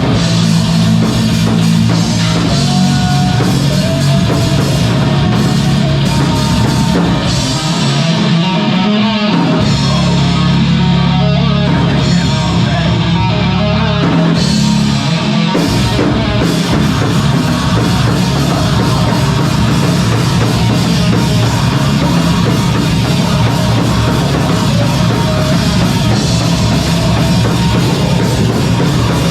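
A live rock band playing loud and heavy: drum kit and guitars in a dense, steady wall of sound. The lowest notes drop out briefly twice, about 8 s and 14 s in.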